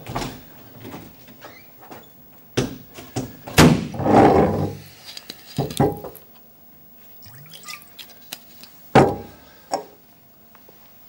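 Scattered knocks and clicks, the loudest a heavier, longer thud about four seconds in.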